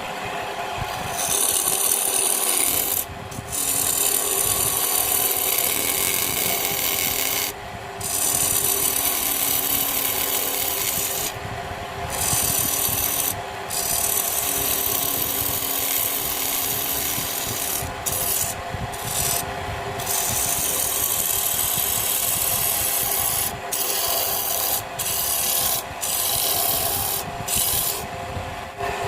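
Wood lathe running with a tool scraping against a spinning wooden bowl blank. The scraping hiss breaks off briefly about a dozen times.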